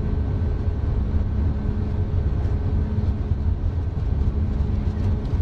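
Steady low rumble with a constant low hum running underneath, with no alarm tones or voice.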